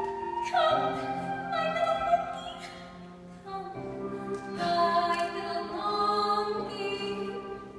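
Singing in an operatic style over orchestral accompaniment, with a series of long held notes.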